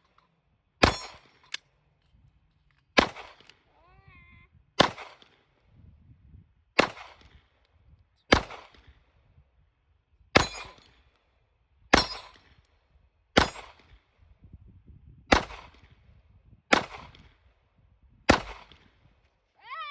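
9mm pistol shots at a steel dueling tree: about eleven shots fired at a slow, steady pace, one every one and a half to two seconds, each with a short decaying tail.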